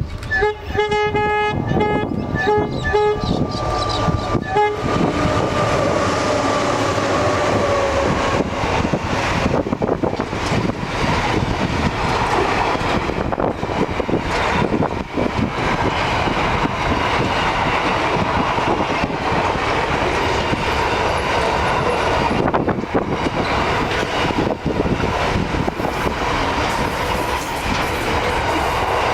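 A freight train's diesel locomotive horn sounds several short blasts, then the locomotives pass with their note dropping in pitch. After that comes a long steady clatter and rumble of the wagons rolling by on the rails.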